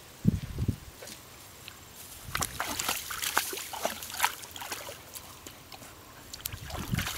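Water splashing and sloshing as dogs wade through shallow water around a floating toy, with a run of splashes and drips between about two and four seconds in. Low thumps come just after the start and again near the end.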